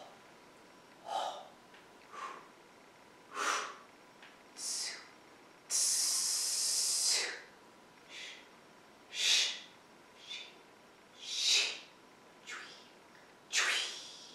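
A woman voicing the T'ai Chi Chih Six Healing Sounds as whispered, breathy exhalations such as "chui". There are about a dozen short hissing breaths roughly a second apart, and one longer hiss lasting about a second and a half about six seconds in.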